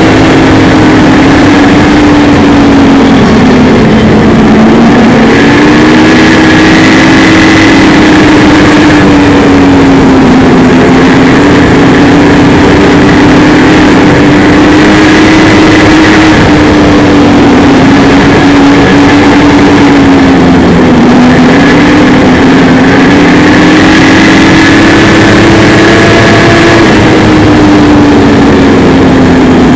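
Snowmobile engine running loud and steady while riding a trail, its pitch dipping and rising a little as the throttle eases and picks up.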